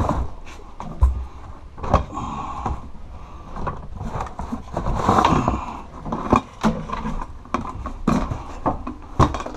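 Hands rummaging through stored belongings: scattered knocks and clatter of objects being moved, with a stretch of paper and cardboard rustling about halfway through.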